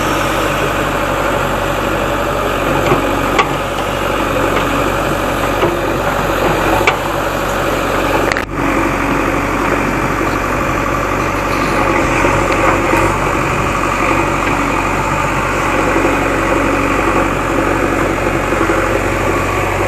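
Diesel engine of a JCB backhoe loader running steadily, with a few short sharp clicks.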